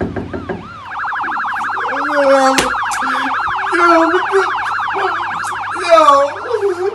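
A siren with a fast, rapid warble, about eight sweeps a second, starts about a second in and runs for about six seconds. A voice wavers underneath it, and there is one sharp click partway through.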